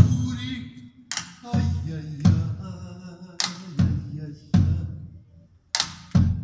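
A deep-toned drum struck with a stick in a sparse, uneven rhythm, about nine strikes, each ringing low and fading. This is the opening of a live percussion-and-voice arrangement, with a singer's voice faintly heard near the start.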